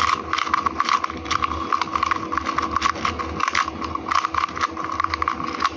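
Plastic 2x2 speed cube being scrambled by hand: its layers clicking and clacking in quick, irregular turns.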